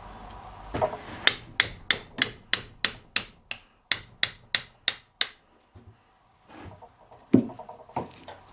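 A hammer striking a metal part of the axle's differential carrier in a quick, steady series of about fourteen sharp blows, roughly three or four a second, then one heavier knock near the end.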